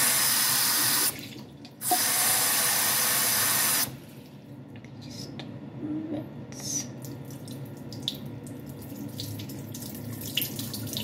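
Water tap running hard into a sink twice, for about a second and then for about two seconds, cutting off sharply each time. After that, quieter splashing and trickling as water is poured from a plastic cup over a braid of hair to rinse slime out.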